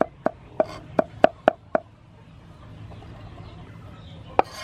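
Cleaver chopping garlic on a wooden cutting board: about seven quick chops over the first two seconds, a pause, then one more chop near the end.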